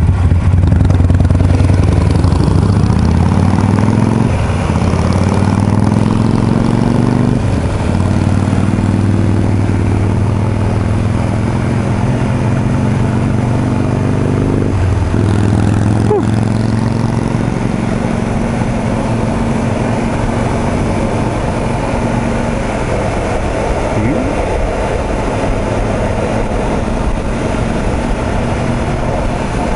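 Motorcycle engines at a stop light, then a Yamaha YZF-R1M sport bike pulling away and accelerating through the gears. The engine pitch rises and drops at each upshift, about 4, 7 and 15 seconds in, then holds steady at cruising speed with wind rushing past.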